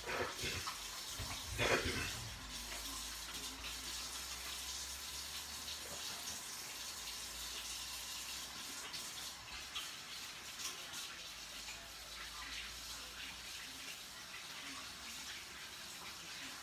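Kitchen tap running steadily while hands are washed under it, with a brief louder splash a little under two seconds in.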